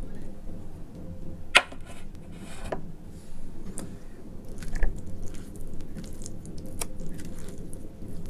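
Sharp clicks and knocks of steel dishes being handled and set down on a table, the loudest about a second and a half in and another near the middle, then soft squishing as a hand starts working into a heap of mashed eggplant.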